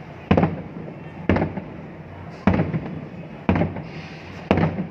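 Aerial firework shells bursting, five sharp bangs about a second apart, each trailing off quickly.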